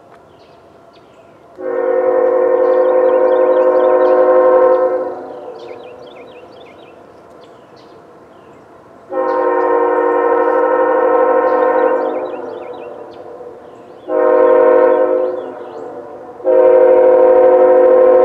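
Air horn of an approaching CSX freight locomotive sounding the grade-crossing signal: two long blasts, a short one, then a long one still sounding at the end. Each blast is a steady multi-note chord.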